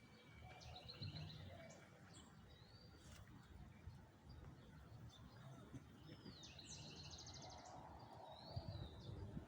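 Faint bird calls over outdoor background hiss: two short rapid trills, one about a second in and a fuller one near the end, with several brief slurred up-and-down whistled notes between them.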